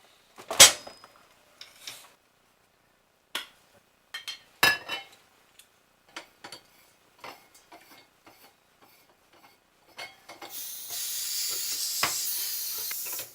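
Clicks and knocks of a blowtorch being handled and fitted together, then a steady high hiss for about three seconds near the end as the blowtorch's gas is let out.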